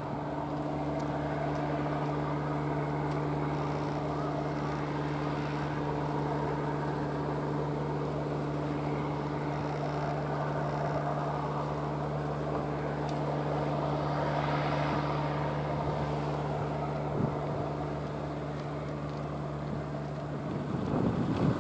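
A steady, unchanging low engine hum with a constant drone. It cuts off abruptly about a second before the end.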